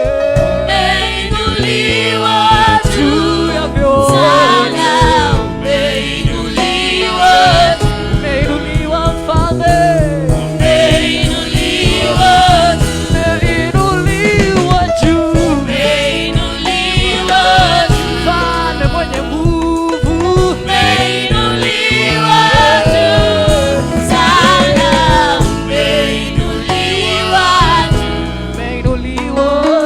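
Gospel worship music: voices singing a melody over steady instrumental backing.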